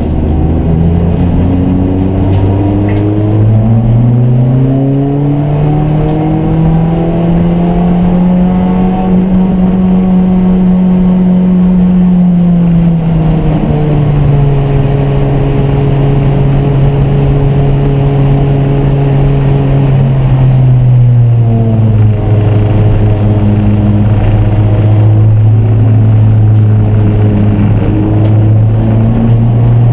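Race car engine pulling, its pitch climbing slowly for about ten seconds, then dropping in two steps at gear changes and holding steady between them.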